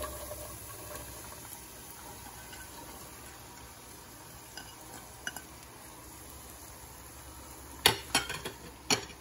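Sliced green vegetables dropped into a pot of hot oil and spices with a faint sizzle, then stirred with a spatula, which knocks against the pot several times near the end.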